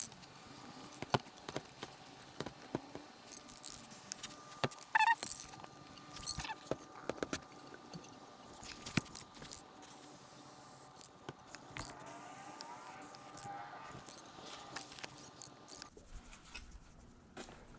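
Wooden boards being picked up and handled, with irregular knocks, clicks and scrapes of wood against wood. A faint steady high tone runs underneath and stops shortly before the end.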